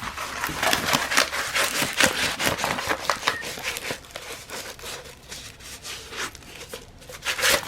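Plastic packaging and a diamond-painting canvas crinkling and rustling as they are handled, a dense run of irregular crackles.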